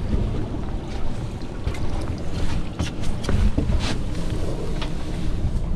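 Wind buffeting the microphone on an open boat at sea, a steady uneven rumble, with a few short clicks and taps scattered through it.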